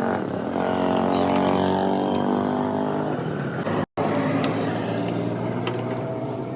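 Motorcycle engine running steadily, the engine noise that its owner presents as a problem. The sound drops out completely for an instant about four seconds in, and a few sharp ticks are heard after that.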